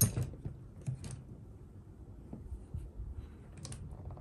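Brass portal cap being handled and seated on an Axial Capra's plastic portal axle housing: one sharp click right at the start, then a few light taps and scrapes of brass against the housing.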